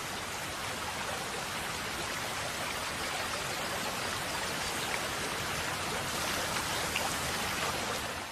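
A steady rushing noise, rain-like, with no tone or rhythm, dropping away at the very end.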